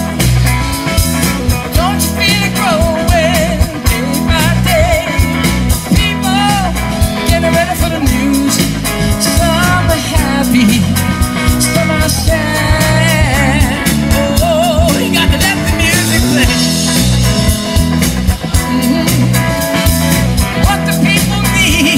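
Rock song played by a band: a lead voice singing over electric guitar and a drum kit keeping a steady beat.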